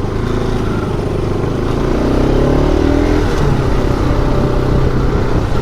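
Motorcycle engine running while being ridden, with its pitch rising for about a second around two seconds in as it accelerates.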